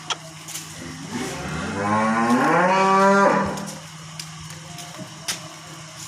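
A Holstein Friesian cow mooing once: one long call of about two and a half seconds that rises in pitch, then holds steady and cuts off.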